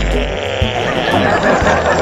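Background music mixed with a jumble of people's voices chattering.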